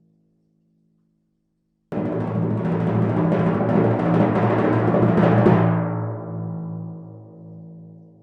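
Silence for about two seconds, then a timpani roll starts abruptly, rapid strokes swelling slightly for about three and a half seconds. The roll stops and the drum's low tone rings on, fading away.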